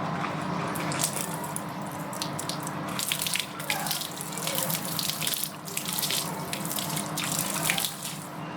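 Water running and splashing during the washing of a motorcycle, the splashing growing heavier about three seconds in and easing near the end, over a steady low hum.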